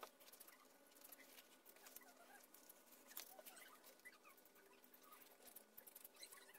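Faint snips and small clicks of scissors cutting through thin leather, in an irregular run.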